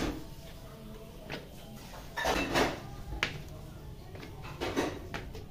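Footsteps and handling noise going up concrete stairs: scuffs and knocks, the loudest a scrape a little over two seconds in, a sharp click about a second later and another scuff near the end.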